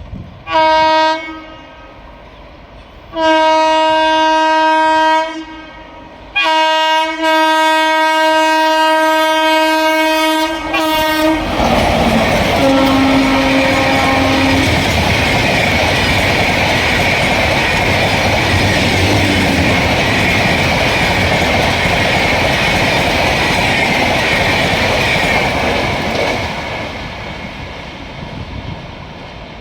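An Indian Railways WAP-7 electric locomotive's horn sounds three times, a short blast, a longer one and a long one of about five seconds, as the express approaches. The train then rushes past at speed in a loud steady rush of wheels and coaches, with a brief lower horn note just after it draws level, fading away near the end.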